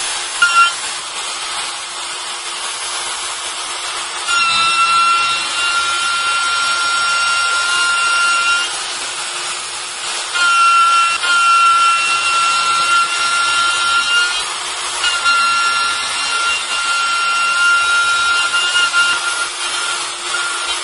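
Kress router spindle on a robot arm running with a steady high whine while milling a relief into a block. The cutting grows louder, with a clearer whine, in three stretches of about four seconds each.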